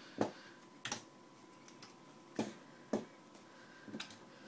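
A puppy's claws and paw tapping on a laptop: about five sharp, faint clicks at irregular intervals.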